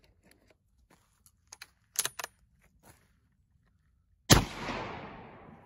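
A few metallic clicks of the bolt being worked on a Marlin Model 54 12-gauge bolt-action shotgun, then about four seconds in a single shotgun blast, most likely a low-brass 7½ birdshot shell, whose echo fades away over a second or so.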